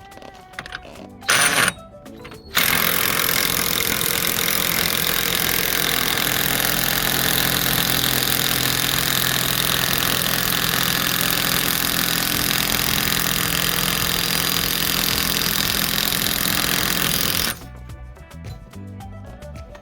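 A power tool running continuously for about fifteen seconds. It starts a couple of seconds in and cuts off suddenly near the end, with a short loud burst just before it starts. Background music plays on either side.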